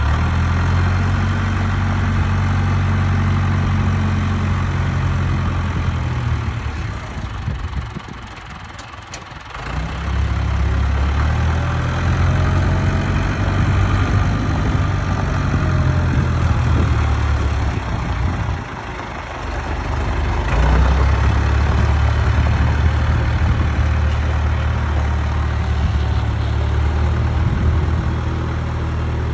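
International Harvester 574 tractor's four-cylinder diesel engine running steadily as the tractor drives and works its front loader. The engine sound drops away briefly twice, about a quarter of the way in and again a little past the middle.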